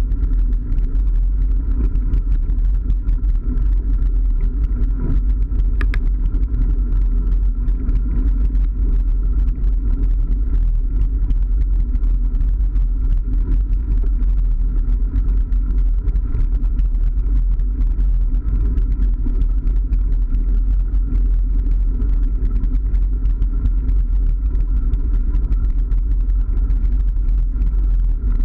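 Mountain bike rolling along a gravel track: a steady low rumble of tyre and wind noise on an action camera's microphone, with a constant fine crackle of gravel under the tyres.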